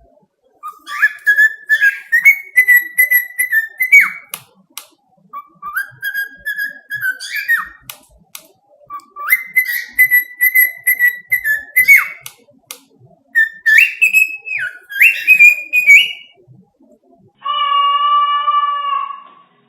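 Pet bird whistling a tune in four phrases of sliding notes, with small clicks between them. Near the end a separate steady tone with overtones sounds for about two seconds.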